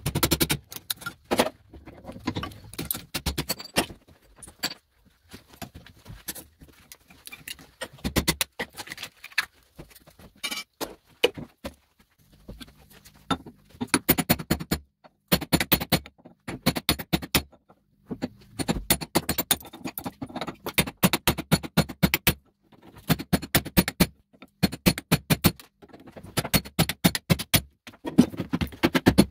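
Hammer blows on a cold chisel cracking the cast-aluminium housings off small electric motor stators held in a steel bench vise, sped up by time lapse: rapid clusters of sharp metallic strikes with brief pauses between them.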